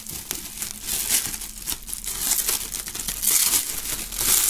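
Plastic shrink-wrap film being pulled and peeled off a box, crinkling and tearing in irregular crackles, louder near the end.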